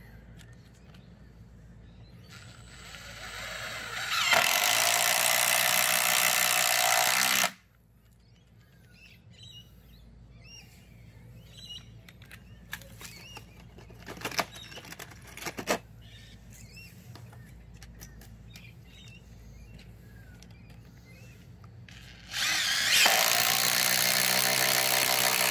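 Makita cordless impact driver driving a fastener in two runs. The first speeds up about two seconds in, then hammers steadily for about three seconds and stops sharply; the second, about three seconds long, comes near the end. Light handling clicks fill the gap between them. Both drives go in easily.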